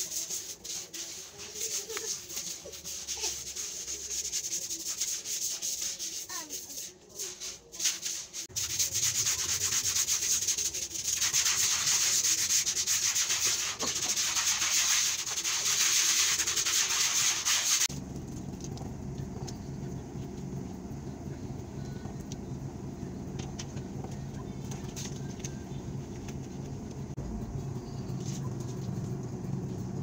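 Brush scrubbing a wet concrete floor: a steady scratchy scrubbing noise that grows louder partway through. It stops suddenly after about 18 seconds and gives way to a steady low hum.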